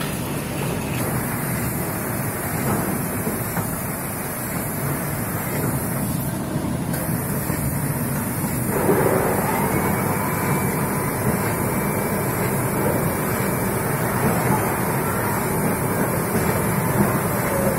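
Automatic cooking-oil filling machine running with a steady mechanical noise, a little louder from about halfway through.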